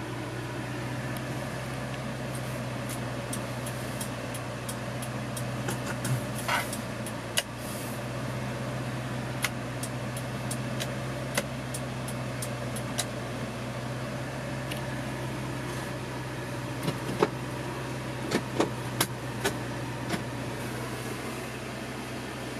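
A Subaru Sambar truck's 660cc inline four-cylinder engine idling steadily, heard from inside the cab, with scattered sharp clicks and taps over it.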